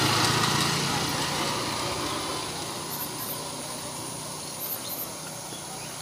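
A small motorbike engine running, loudest at the start and fading over the next few seconds.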